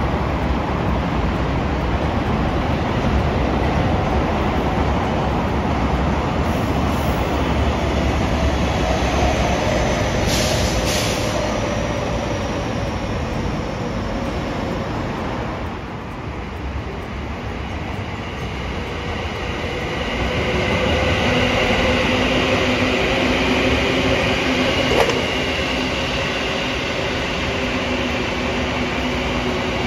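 A train running past on the rails: a steady rumble of wheels that eases about 16 seconds in, then builds again with a steady whine of several pitches over it.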